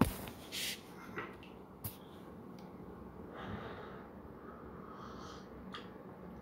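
A sharp knock at the very start, then a person quietly sipping tea from a ceramic mug: soft slurps and nasal breaths with a few faint clicks, the fullest sip about three and a half seconds in.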